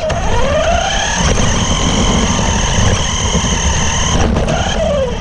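RC buggy's motor whining as the car drives: the pitch rises as it speeds up just after the start, holds a steady high whine for about three seconds, then drops as it slows near the end, over the rumble of its tyres on pavement.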